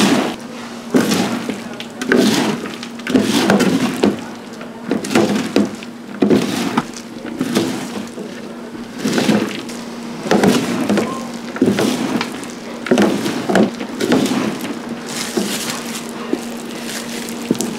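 Irregular knocks and scrapes on wood, roughly one a second, as the oranda snack is worked by hand at the stall. A steady low hum runs underneath.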